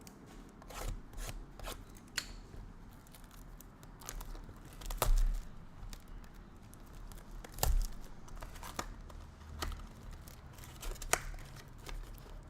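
Card packaging being torn and crinkled open, with scattered sharp clicks and taps as cardboard boxes and cards are handled; the loudest knocks come about five and eight seconds in.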